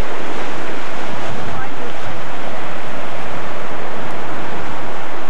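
Ocean surf surging and foaming over shoreline rocks: a loud, steady rush of water.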